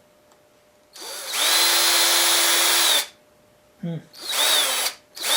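Craftsman 19.2-volt cordless drill's brushed motor spinning up to full speed with a steady whine, running for about two seconds, then winding down. It is then blipped on the trigger in shorter spurts near the end.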